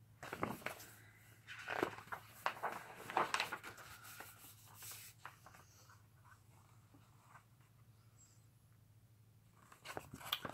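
Paper cross-stitch chart booklet being handled and its pages turned: irregular paper rustles and soft taps for about five seconds, a lull, then more handling near the end.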